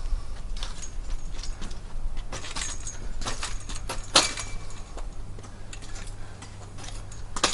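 Metal parts of a pop-up canopy frame clinking and rattling as they are handled, with scattered clicks and a sharp knock about four seconds in.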